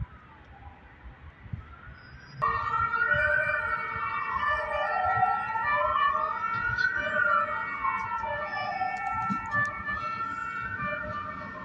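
A siren wailing, its pitch rising and falling slowly, one sweep about every four seconds. It is faint at first and becomes much louder suddenly a couple of seconds in, with steady high tones alongside.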